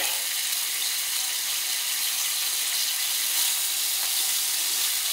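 Beef small-intestine horumon sizzling steadily on a hot griddle plate over a tabletop gas burner.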